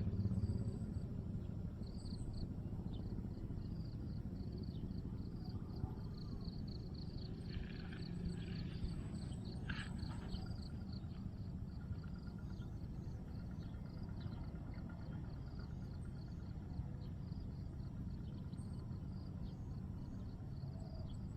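Outdoor ambience of insects chirping in a fast, rhythmic pulse over a steady low rumble, with brief rustling noises about eight and ten seconds in.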